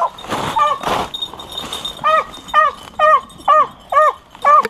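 Hunting dog yelping in a run of short calls, each falling in pitch, coming about twice a second through the second half. There are two short crackles near the start.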